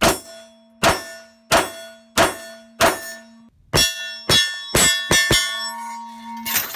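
A 9mm AR-9 pistol firing about ten shots at a hanging steel target, each hit answered by the plate ringing. The first five shots come evenly about two-thirds of a second apart, then the rest come faster.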